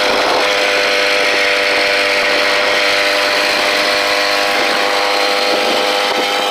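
Small engine of a motorized bicycle running at a steady cruising speed, a constant buzz, with wind rushing over the microphone.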